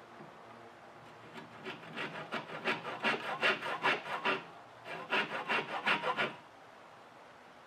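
Handsaw cross-cutting a hardwood dowel: a run of quick back-and-forth rasping strokes that starts about a second and a half in, pauses briefly midway, and stops a little over a second before the end.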